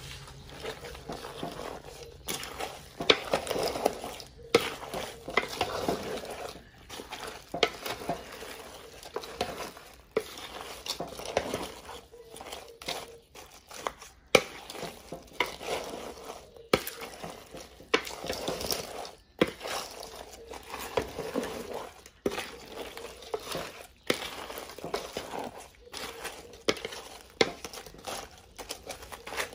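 Wooden spoon stirring a big aluminium pot of cooked crawfish and shrimp in sauce: irregular swishes as the shells are turned over, with frequent sharp clicks of shells and spoon against the pot.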